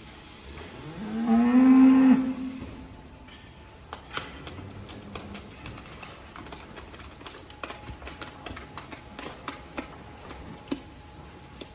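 A cow mooing once, a loud call lasting about a second and a half that rises in pitch as it starts, about a second in. Scattered sharp clicks and knocks follow.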